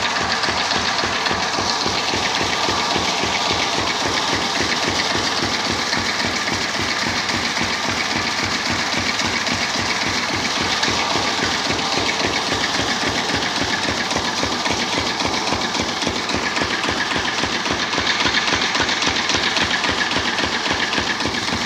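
Single-cylinder stationary diesel engine of a farm pump set running steadily, its firing beats coming at an even pace.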